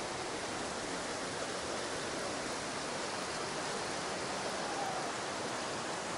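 Steady rush of a mountain stream cascading through a narrow gorge.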